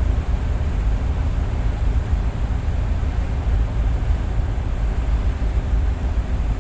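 Tugboat's diesel engine running with a steady low rumble, heard from on deck with wind buffeting the microphone.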